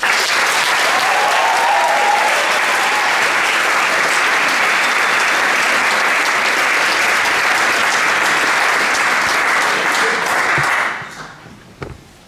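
Audience applauding in a small theatre, the clapping starting suddenly and holding steady before dying away about eleven seconds in.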